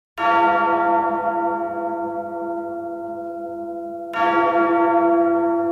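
Large bell tolling twice, about four seconds apart, each stroke ringing long and slowly fading.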